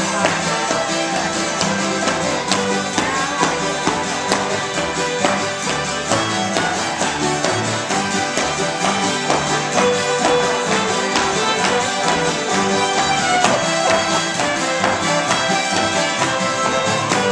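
An acoustic old-time string band playing, with guitars strumming, and sharp foot taps from flatfoot dancing on a wooden floor scattered over the music.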